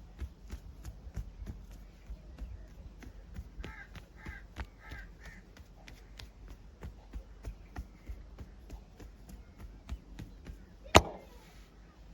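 Body-cracking massage: a steady run of short sharp clicks and pops, about two or three a second, with one much louder crack about eleven seconds in. Four short calls sound about four to five seconds in.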